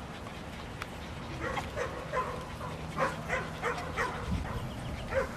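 Dog barking in a run of short, high yips, about three a second, starting about a second and a half in.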